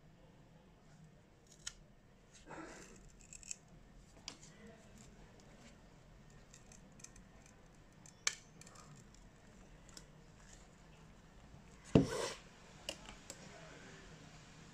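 Small metal repair tools clicking and tapping against a smartphone during disassembly for a charging port replacement. There is a short scrape about two and a half seconds in and a sharp knock about twelve seconds in.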